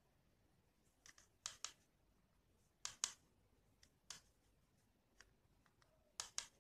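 Sharp, light clicks and taps over near silence, several in quick pairs, the loudest pair about three seconds in.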